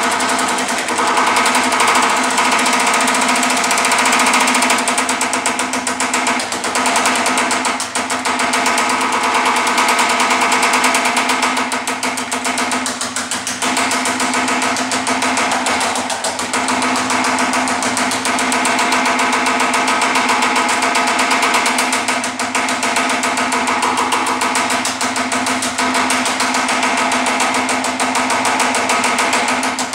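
Power hammer with shrinking dies pounding 18-gauge sheet metal in a rapid, steady stream of blows, with a few brief dips as the panel is moved under the dies. The shrinking dies gather and thicken the metal, working it deeper.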